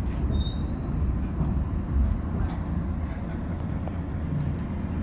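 JR 115-series electric train running slowly alongside a station platform as it pulls in to stop, a steady low rumble of wheels and running gear inside the carriage. A thin, faint high squeal, likely from the brakes, runs from about a second in until near the end.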